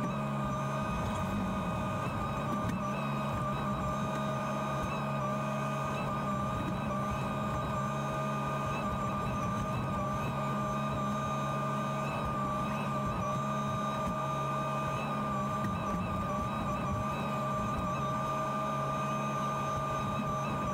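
JCB 48Z-1 mini excavator running at a steady engine speed, heard from inside its closed cab: a constant low hum with a steady high whine above it.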